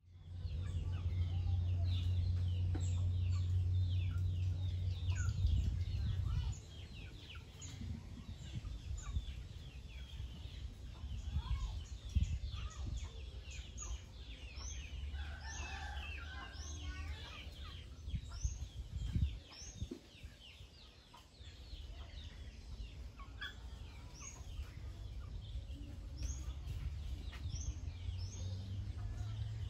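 Farmyard birds: chickens clucking amid many rapid high chirps of small birds. A low steady rumble underneath drops away about six seconds in.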